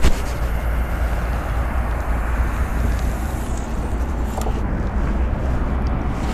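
Long cast with a surf rod: a sharp swish at the start, then line hissing off the spinning reel for about three and a half seconds. A steady low outdoor rumble runs underneath.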